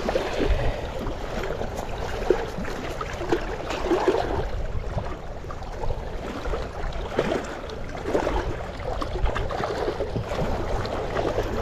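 Wind buffeting the microphone in a steady low rumble, with choppy lake water lapping at the shore.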